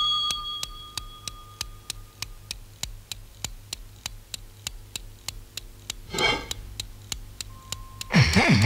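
Steady ticking like a clock, about four or five ticks a second, as a cartoon sound effect. A short noisy burst comes about six seconds in, and music comes back loudly near the end.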